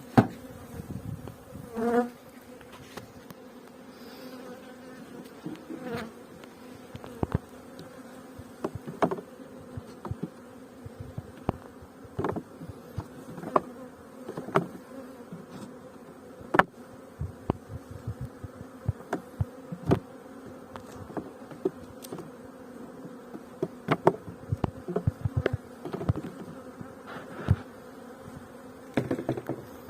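Honeybees buzzing around the hives in a steady hum, with frequent short knocks and clicks at irregular intervals.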